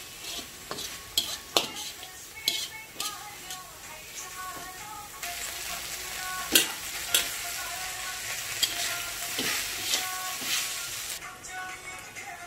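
Food frying in a pan and being stirred, with a utensil clicking and scraping against the pan. The sizzle grows louder and steadier from about five seconds in until near the end.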